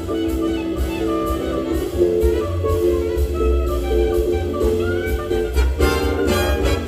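Jazz big band playing live: a soprano saxophone in front over held horn chords and a walking bass, with the trumpets joining in brightly near the end.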